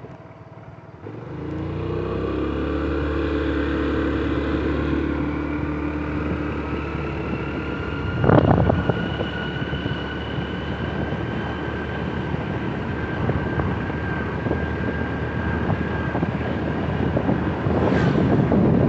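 Motor vehicle engine running steadily, its pitch slowly rising as it gathers speed, with a single loud thump about eight seconds in.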